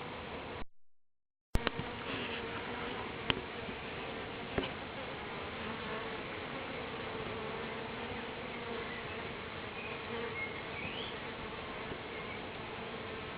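A honeybee swarm humming steadily, a dense buzz of many bees flying together. The sound cuts out for about a second near the start, and a few sharp clicks come in the first few seconds.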